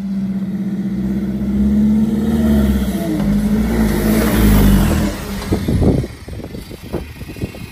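The engine of a modified solid-axle Mahindra Thar off-roader running under load as it drives, with a steady note that swells twice and then drops away about five seconds in. A few sharp knocks follow the drop.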